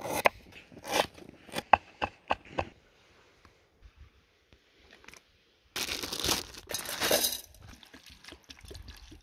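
Kitchen knife chopping garlic on a wooden board: about eight sharp taps, uneven, in the first two and a half seconds. After a quiet spell, a loud stretch of noise lasts about a second and a half, about six seconds in.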